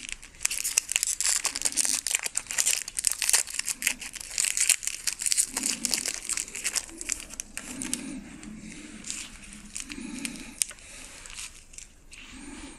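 Foil wrapper of a Magic: The Gathering booster pack crinkling and tearing as it is ripped open by hand. The crackle is busiest in the first half, then thins to quieter rustling.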